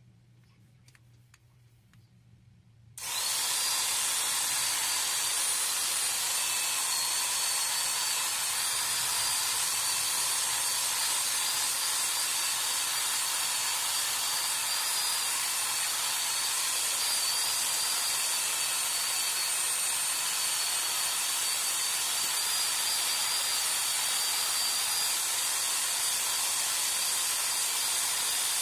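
Electric drill spinning a buffing pad against a car headlight lens, starting suddenly about three seconds in and running steadily with a high whine.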